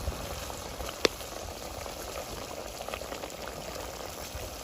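A pot of pork and vegetable stew boiling: steady bubbling, with one sharp click about a second in.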